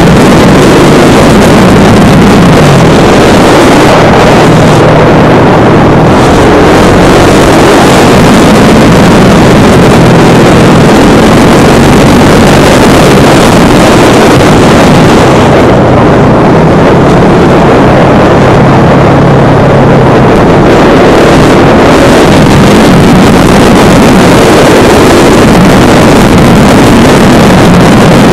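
Husqvarna Vitpilen 701's single-cylinder engine running at road speed, mixed with heavy wind noise on the microphone. The sound thins for a few seconds past the middle.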